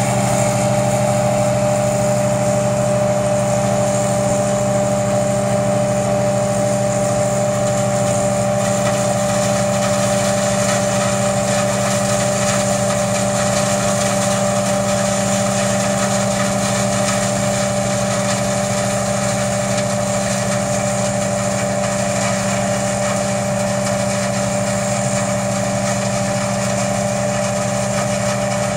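Massey-Ferguson 8570 rotary combine harvesting corn: diesel engine and threshing machinery running steadily under load, with a constant whine over the drone. It fades a little as the combine moves away.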